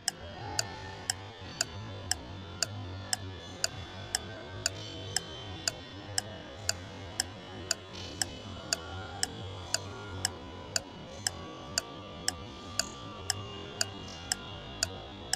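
Steady clock-like ticking, about two ticks a second, over a quiet background music bed.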